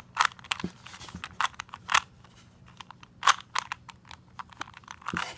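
Rubik's Cube being turned by hand: quick, irregular clicks of the plastic layers, several a second, with a few louder ones.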